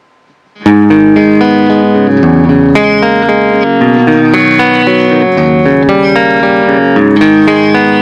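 Ibanez RGIT20FE Iron Label electric guitar with EMG active humbuckers, tuned down to Drop C♯, playing a clean tone. It comes in under a second in with ringing chords and picked notes that overlap and sustain.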